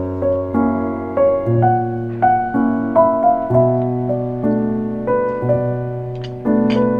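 Background piano music: a gentle melody over sustained chords, with new chords struck about once a second.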